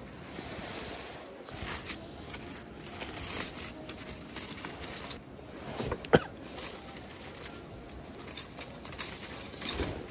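Aluminium foil crinkling and rustling as a foil packet is torn open and peeled back, in irregular crackly bursts, with one sharp click about six seconds in.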